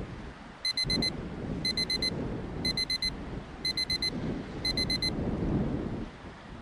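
Electronic alarm beeping five times, about once a second, each time a quick run of four short high-pitched beeps: a timer's signal that five minutes have elapsed.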